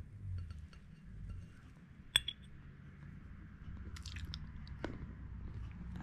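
Metal fork clinking on a ceramic plate while cutting through a slice of Swiss roll: a few light clinks, the sharpest about two seconds in and several more around four to five seconds in.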